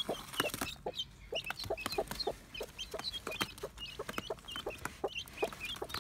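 Newly hatched guinea fowl keets peeping in short high chirps, several a second, mixed with the short clucks of their broody Marans cross foster hen.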